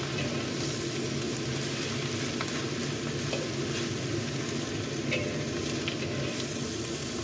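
Yau mak choi (Hong Kong A-choy lettuce) leaves sizzling steadily as they are stir-fried with garlic in an oiled wok. A metal spatula scrapes and taps against the wok now and then.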